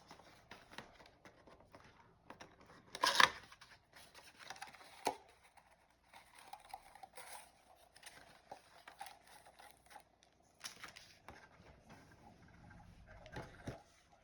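Trading-card box packaging being handled and torn open: irregular crinkling, rustling and scraping of wrapper and cardboard. The loudest tear is about three seconds in, with further sharp rips near five, eleven and thirteen seconds.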